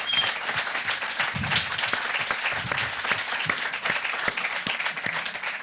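Audience applauding steadily, a dense patter of hand claps that tails off near the end.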